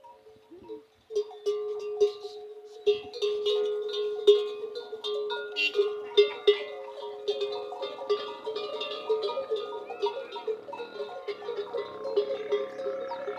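Large bells hung on camels' necks clanking irregularly as the camels move, the struck tones ringing on between strikes. The clanking starts about a second in.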